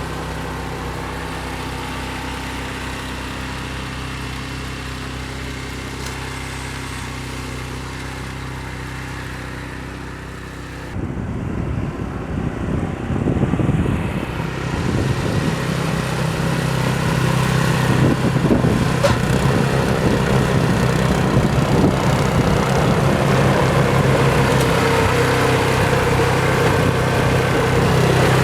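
An engine running steadily. About eleven seconds in it becomes louder and rougher, and stays that way.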